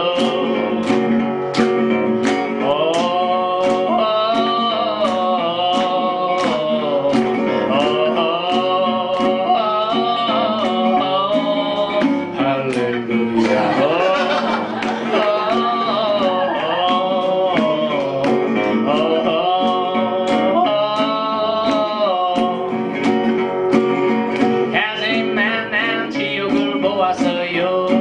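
A man singing in Korean to two strummed acoustic guitars, the strums keeping a steady beat: a live folk song.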